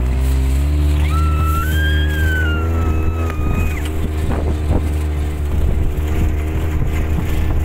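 Tow vehicle's engine running under load as it pulls a parasail and rider aloft, a steady low drone that rises a little in pitch about half a second in. A long high-pitched tone sounds over it from about a second in, lasting nearly three seconds.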